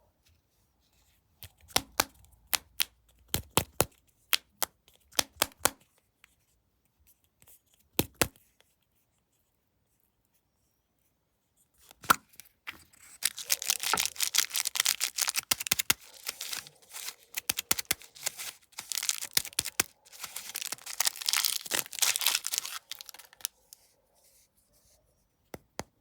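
Snack packaging being handled: a series of sharp taps or clicks, then, about halfway through, a long stretch of a plastic wrapper being torn open and crinkled.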